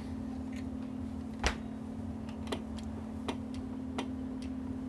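Sharp, irregular clicks of an amplifier's transmit/receive relay pulling in and dropping out as the radio is keyed, now that the failed relay has been replaced and latches; the loudest click comes about a second and a half in. A steady low hum runs underneath.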